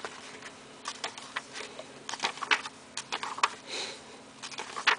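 Glossy pages of a thick program being flipped and handled by hand: irregular quick paper rustles and slaps, a few a second, with a louder page slap near the end.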